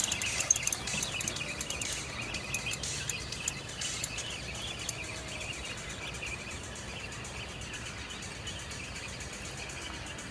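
Small birds chirping and twittering, busiest in the first few seconds and thinning out later, over a steady faint outdoor hiss.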